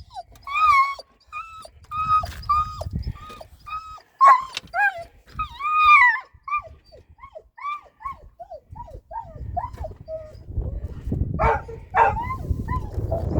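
An animal giving a rapid series of short, high-pitched whining calls that rise and fall in pitch, some loud, with a low rumble underneath near the start and growing in the last few seconds.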